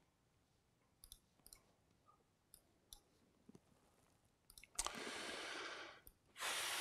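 Near silence broken by a few faint separate clicks of a computer mouse, followed from about five seconds in by a steady hiss that drops out briefly and returns.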